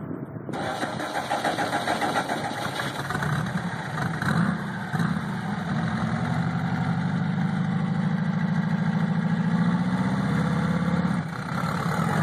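Buggy engine fired up and running, its note rising slowly over several seconds, then dropping back about eleven seconds in.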